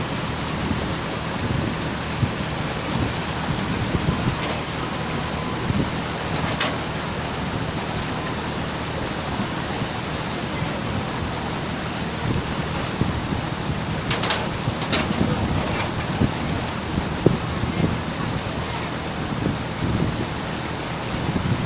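Steady rush of wind and water noise from a moving river boat, with low uneven buffeting rumbles and a few sharp clicks, two close together about two-thirds of the way in.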